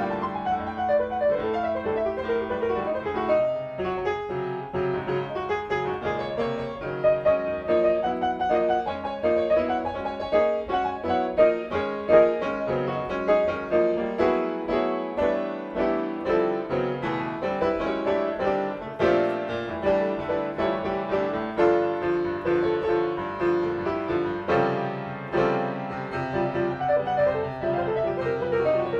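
Jazz piano playing an instrumental passage, chords under a moving melody line, with no singing.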